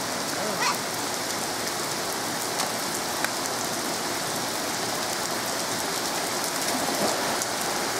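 Heavy rain pouring steadily and spattering on the ground and pavement, a dense even hiss with scattered drop ticks, during a flash-flood thunderstorm.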